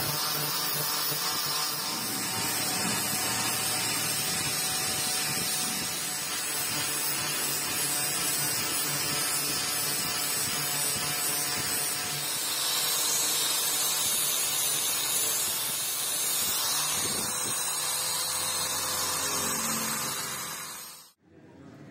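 Angle grinder with a sanding disc running and sanding the steel face and edge of an axe head: a steady grinding whir that cuts off abruptly near the end.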